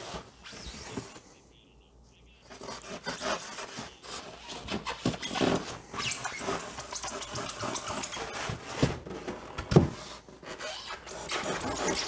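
Styrofoam box being handled and shifted on a workbench: irregular scraping and squeaking of foam against foam and wood, with a sharp knock near the end.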